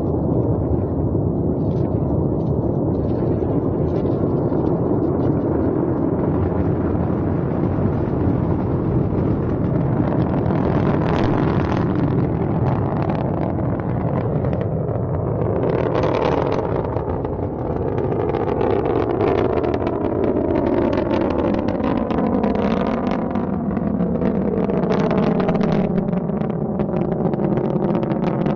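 Loud, steady noise of a Long March 4C rocket's first-stage engines at liftoff and climb-out, crackling throughout. About halfway through, sweeping tones appear inside the noise.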